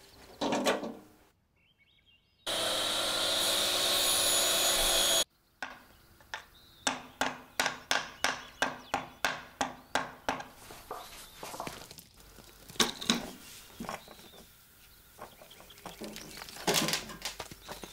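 A chisel knocking into the hardened baked crust around a whole fish in a run of quick, even taps, about three a second, then the cracked crust being broken and pulled off by hand in irregular cracks and crumbles. Near the start, a loud steady hiss lasts about three seconds.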